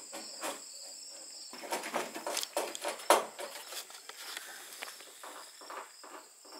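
Insects chirring steadily in a high band, with a busy run of light clicks and rustles through the middle and one sharper click about three seconds in.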